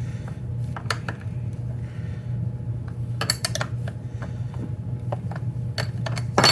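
Hand tools and metal chainsaw parts clinking and clicking now and then, with a cluster of clicks about three seconds in and a louder clank near the end, over a steady low hum.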